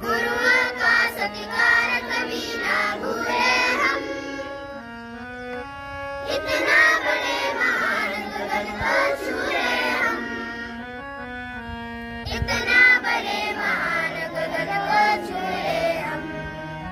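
Children singing a Hindi devotional prayer in chorus to a harmonium's held chords. The song comes in three sung phrases, with the harmonium playing alone briefly between them.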